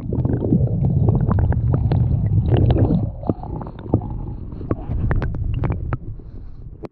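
A stream's current heard with the microphone underwater: a heavy, muffled low rumble with many scattered sharp clicks and knocks. It is loudest for the first three seconds, then eases off.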